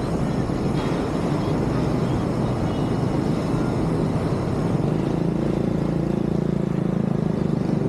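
Street traffic: a steady hum of passing cars and trucks, with an engine drone growing stronger about five seconds in as a vehicle passes close by.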